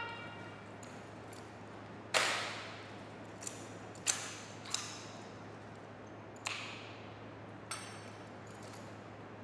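Color guard riflemen handling their drill rifles in the manual of arms: one sharp slap on the rifles about two seconds in, then five lighter clacks spread over the next six seconds, each ringing out in the echo of a large gym.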